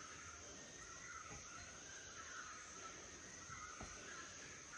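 Faint forest ambience: insects droning steadily at a high pitch, with softer wavering calls beneath.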